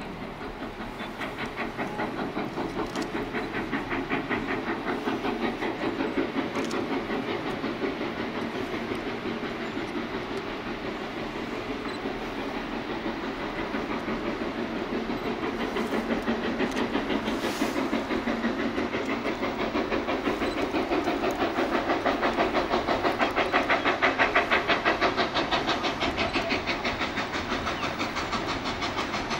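Quincy Railroad #2, a 2-6-2T steam tank locomotive, working with rapid, even exhaust chuffs that grow louder as it approaches, loudest about three-quarters of the way through.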